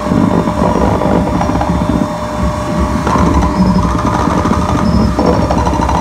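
Live noise performance on JMT Synth analog modules (TVCO-2 oscillators, SNB-2b): loud, dense, grinding electronic noise over a low rumble, with held buzzing tones whose texture shifts about three seconds in and again near the end.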